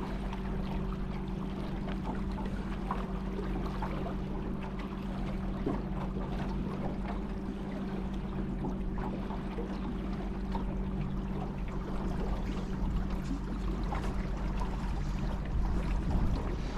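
A boat motor running at a steady hum, with water rushing and splashing around the hull.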